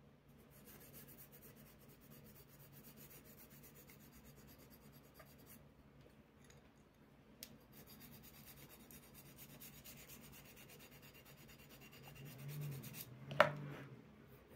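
Faint, quick scraping strokes of a wooden abrasive block rubbed along the edge of a thin steel blade. A single sharp click about a second before the end.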